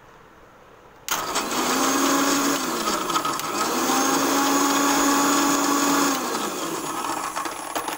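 Singer mixer grinder's motor starting with a sudden whir about a second in, blending milk and ice cubes in its stainless-steel jar. Its pitch sags briefly and picks up again, then falls as the motor slows about six seconds in.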